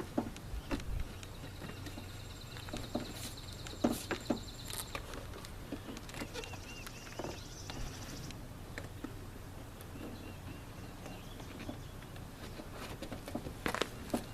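Scattered clicks and knocks as a truck door panel is pressed onto the door, its push pins snapping into the holes, with the sharpest knocks about four seconds in and near the end.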